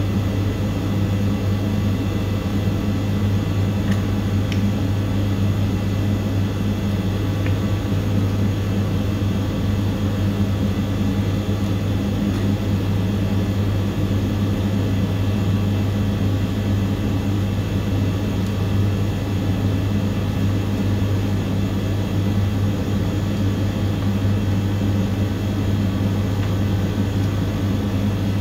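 Steady, unchanging low machine hum, with a few faint clicks about four and seven seconds in.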